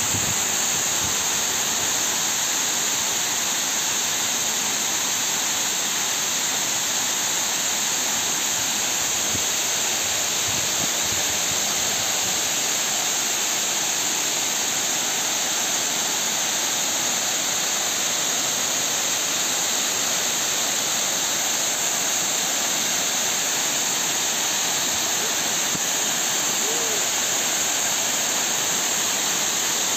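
Steady rush of water overflowing the Tai Tam Tuk Reservoir dam's spillways and pouring down the dam face: the reservoir is spilling over after heavy rain.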